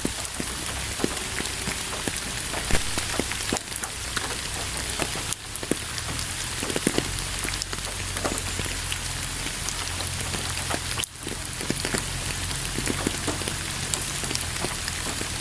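Steady rain, with many separate drop hits over an even hiss.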